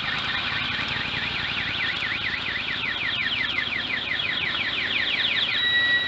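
Electronic siren wailing up and down, its sweeps speeding up steadily, then switching to a steady tone near the end, over the low noise of passing motorcycles and trikes.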